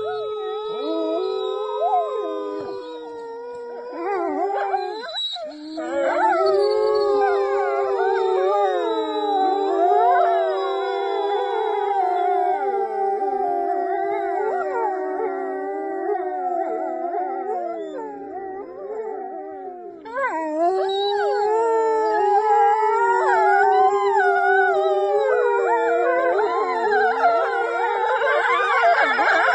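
A pack of grey wolves howling in chorus, joined by a woman howling through cupped hands. Starts with one or two long, steady howls, then many overlapping howls rising and falling in pitch, with a brief lull about five seconds in and another near twenty seconds before the chorus swells again.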